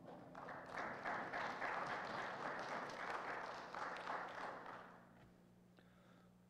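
A congregation applauding. The clapping dies away about five seconds in.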